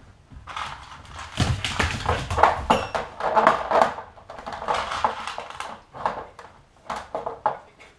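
Metal lids of small glass jars clinking and rattling in a run of irregular clicks as a dog noses and paws along them, with a low thud about a second and a half in.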